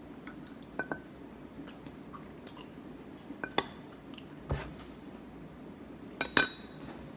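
Scattered light clicks and clinks of tableware and food being handled while eating, a few isolated taps with a louder cluster near the end.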